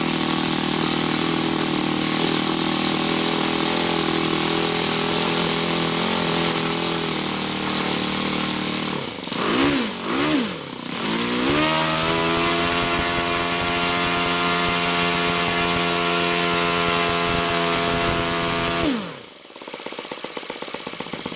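YS FZ63S supercharged four-stroke glow model-aircraft engine with an APC 12x8 propeller, just started and running at a steady speed. About halfway through its speed wavers and dips, then it settles at a higher steady speed. Near the end it drops sharply to a low idle.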